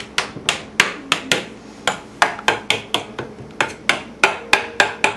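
A fork pricking whole wheat pizza dough on a pizza pan, its tines striking the pan through the dough in sharp, ringing clicks about three times a second. The crust is being docked so it won't bubble when par-baked.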